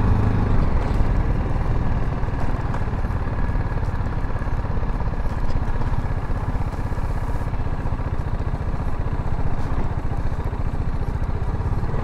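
Single-cylinder engine of a BMW G310GS motorcycle running steadily while riding along a rough, broken dirt road.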